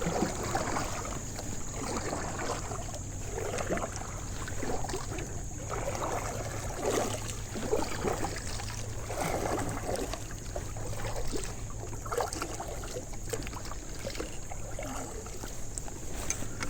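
Water lapping and sloshing against a fishing kayak's hull, in irregular swells every second or two.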